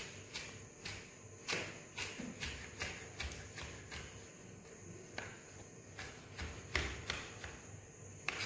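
Kitchen knife chopping rolled-up leaves on a cutting board: a string of faint, short taps as the blade strikes the board, roughly two a second at an uneven pace.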